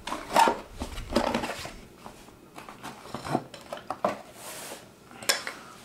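Cardboard box holding a clamp lamp being handled and opened: a series of knocks, clatters and scuffs of cardboard, the sharpest about half a second in.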